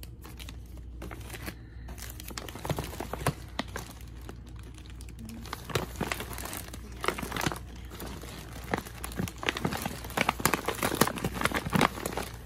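A plastic bag and crinkly candy packaging are handled and shifted about, giving irregular crinkling crackles. The crinkling grows busier and louder in the second half.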